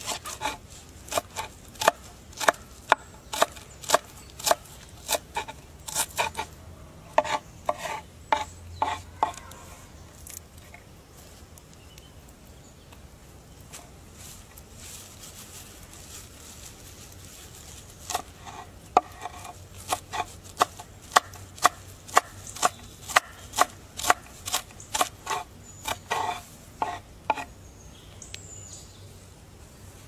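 Knife chopping fresh herbs on a wooden board: sharp knocks of the blade striking the wood, about two a second. The chopping stops for several seconds in the middle, then starts again.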